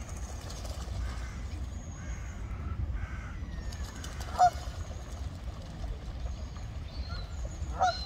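Geese honking: one loud honk about halfway through and another near the end, over a steady low rumble.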